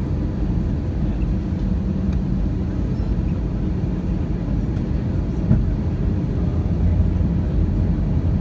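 Airbus A320 cabin noise in flight, heard from a window seat beside the wing: a steady, low rumble of the jet engine and airflow.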